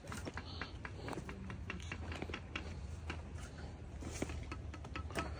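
Footsteps crunching on loose dirt and gravel, a run of irregular short crunches and clicks over a low rumble.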